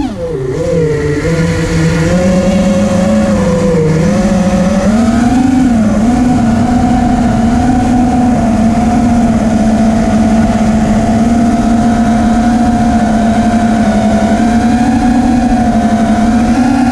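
FPV drone's motors and propellers buzzing in flight, a steady pitched hum whose pitch drops right at the start, wavers, rises briefly about five seconds in and then holds steady.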